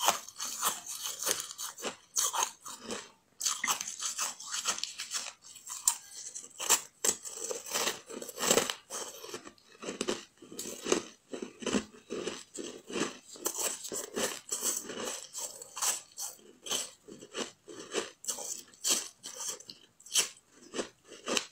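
Chewing a mouthful of ice frozen from packed shavings with no water added: a rapid run of crisp crunches, several a second, as the ice breaks between the teeth.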